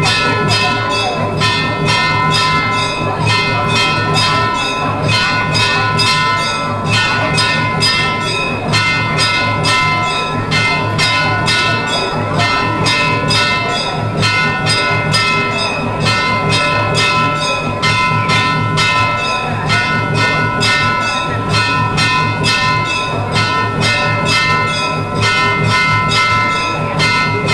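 Temple bells ringing without a break during a Hindu puja, struck in a fast, even rhythm of about three strikes a second, with the bell tones hanging on between strikes.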